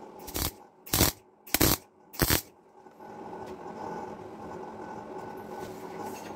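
MIG welder laying four short bursts of weld in quick succession, about two thirds of a second apart, stitch-welding a steel side repair panel onto a Land Rover Series IIA chassis at the front spring hanger. After the bursts stop, a quieter steady hum continues.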